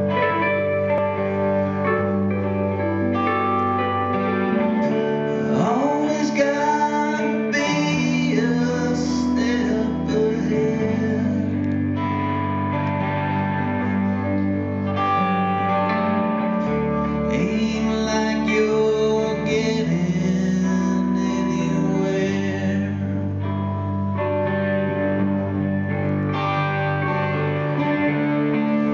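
Rock band playing a song live: electric guitars and keyboard over drums, with some sliding guitar notes.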